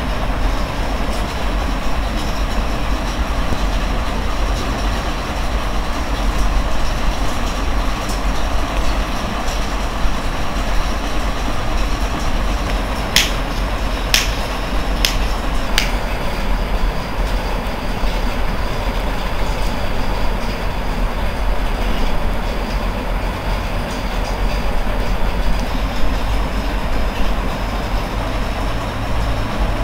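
Steady rumbling background noise, with a few sharp clicks about halfway through.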